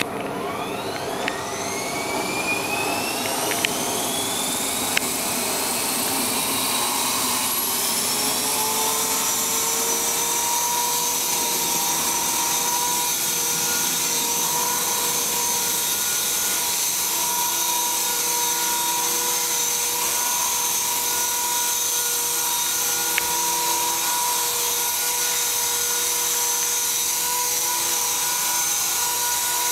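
Align T-Rex 450 Pro electric RC helicopter spooling up, its motor and rotor whine rising in pitch over the first eight seconds or so, then running at a steady high whine as it lifts into a low hover. A few light clicks come in the first five seconds.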